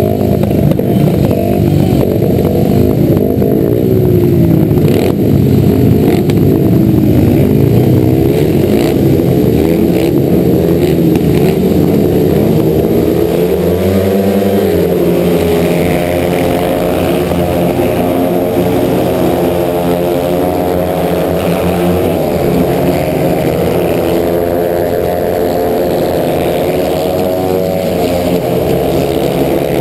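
Several 500cc single-cylinder speedway motorcycles revving at the start tapes, the rider's own bike loudest. About halfway through, the engines rise sharply as the bikes launch, then run flat-out around the dirt oval.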